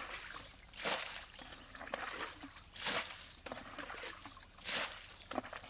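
Muddy water being bailed by hand with a plastic pail: a scoop and a splash of thrown water about every two seconds, three times.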